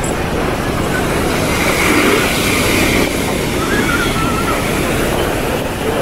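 Steady wash of surf breaking along the shoreline, with wind noise on the microphone and scattered voices of people on the beach.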